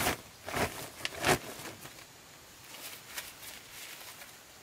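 Ears of corn in the husk dropped into a woven plastic sack: three sharp rustling thuds in the first second and a half, then softer rustling of husks and plastic as more ears are handled.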